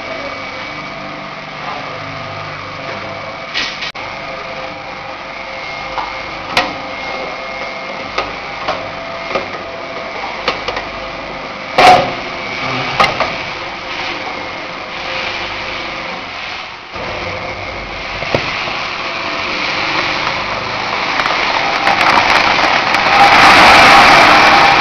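Drum nut roaster running with a steady machine hum, broken by a few sharp metal knocks as its discharge lever is worked, the loudest about halfway through. Over the last few seconds a rising rush and rattle of roasted nuts pours out of the discharge chute into a cardboard box.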